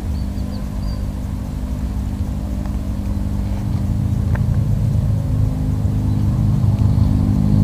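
An engine running steadily: a low, even hum with a rumble beneath it that grows louder through the second half.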